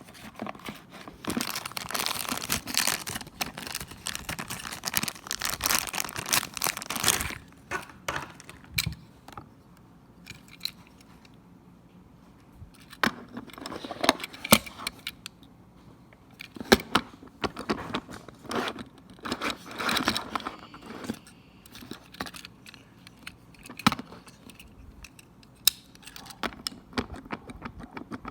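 Packaging being opened by hand: cardboard and plastic rustling and tearing, with small clicks and rattles. There are two longer stretches of handling, one near the start and one around the middle, with sharp clicks in between.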